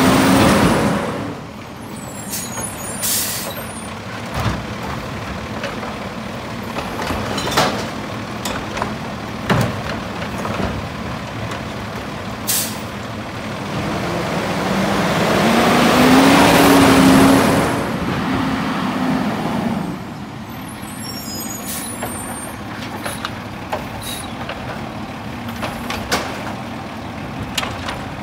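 Autocar garbage truck with a Heil Multitask automated side-loader body running at work, its diesel engine revving up for several seconds around the middle before settling back. Short air-brake hisses and knocks break in now and then.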